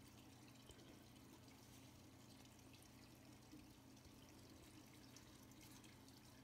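Near silence: a faint steady hum, with only the soft, barely audible pour of thick acrylic paint from a paper cup onto a canvas.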